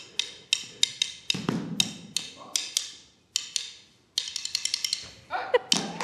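Wooden drumsticks clicked against each other in a quick, syncopated rhythm of sharp, dry clicks, stopping briefly twice about halfway through before starting again.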